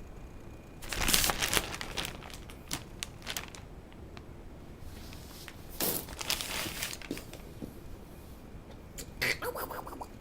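Crinkling and rustling in two louder bursts with scattered small clicks, as a kitten moves about in a cheap basket. A short pitched sound comes near the end.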